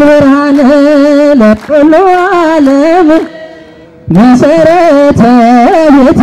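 A solo voice chanting an Ethiopian Orthodox hymn in long held notes with a wavering pitch. There is a short break after about a second and a half, and a pause of about a second halfway through.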